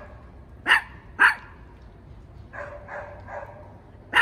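Small Shih Tzu–Bichon Frise mix dog barking: two sharp barks about half a second apart, under a second in, with quieter sounds after them and a third bark at the very end.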